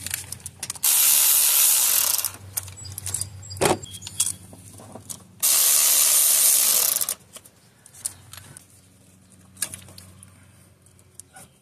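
Two long hissing sprays, each about a second and a half, with a sharp metallic knock between them and a few light tool clicks afterwards.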